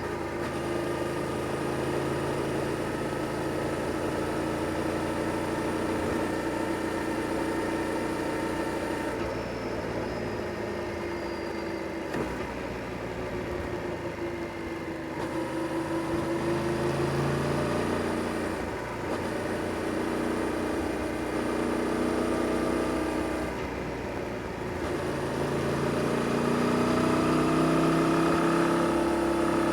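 Yamaha Tracer 7 GT's stock-exhausted 689 cc parallel-twin engine heard from the rider's seat while riding twisty roads. The engine note rises and falls again and again as the throttle is opened and closed through the bends. It eases off twice and builds to its loudest near the end.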